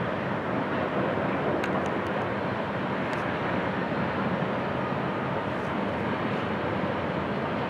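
Steady, distant drone of GE ES44AC diesel locomotives working at the head of a loaded coal train.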